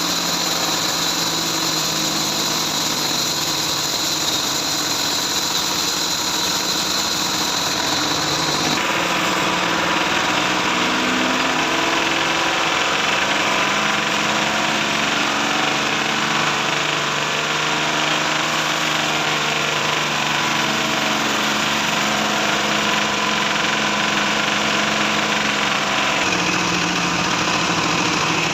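Bandsaw mill running steadily, without a break. Its pitch and tone shift about nine seconds in and again near the end.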